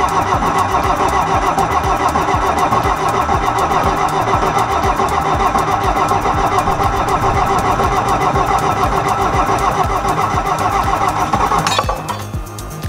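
Bobcat 743 skid-steer loader's engine running steadily, driving the axle so that a wrench braced on the axle bolt can break it loose. It stops near the end.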